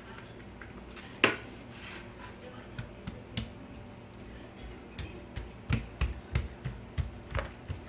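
Hands tapping and patting thin feteer dough on a work surface while stretching it out: one sharp knock about a second in, then from about halfway a run of light taps roughly two a second.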